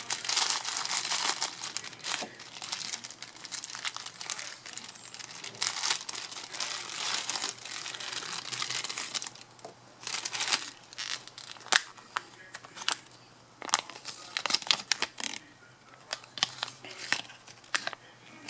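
Clear plastic packaging bag crinkling as it is handled and opened by hand. The crinkling is dense for the first half, then comes in sparser, sharp crackles.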